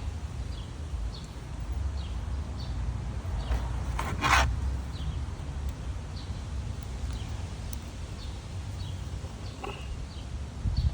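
A short scraping rub about four seconds in, with a fainter one near the end, from plastic air-intake parts being handled and fitted by hand, over a low steady rumble and faint scattered bird chirps.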